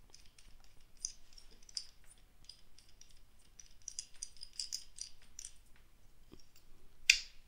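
Small, quiet clicks and taps of plastic GoPro suction-cup mount parts being handled and taken apart by hand, with a brief louder rustle near the end.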